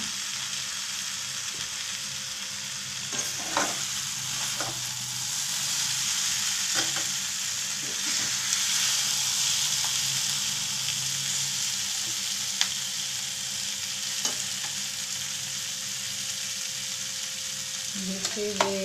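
Boiled potato cubes and curry leaves frying in oil in a pan, a steady sizzle throughout, with occasional clicks and scrapes of a steel spoon stirring them.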